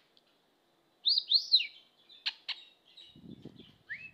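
Pet budgerigar whistling and chirping: two loud arched whistle notes about a second in, then a pair of short clicks, and a rising whistle near the end.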